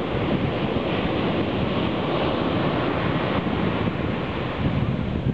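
Ocean surf breaking and washing up a beach as a steady rushing wash, with wind buffeting the microphone.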